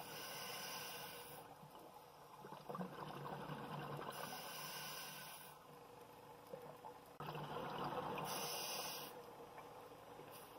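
Scuba diver breathing through a regulator underwater: a hissing breath about every four seconds, with bubbly noise in between.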